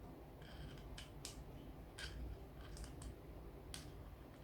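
A few faint, irregular small clicks of metal parts being handled as the handle fastening on a spinning reel is tightened and checked.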